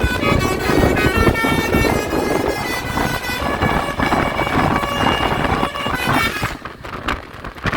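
Tourist bus's multi-tone telolet basuri horn playing a melody of stepping notes over engine and road rumble. It drops away near the end.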